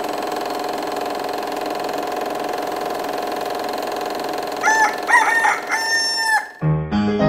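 A rooster crows about four and a half seconds in, a short call and then a long one that bends down at the end, over a steady hum. Near the end piano music begins.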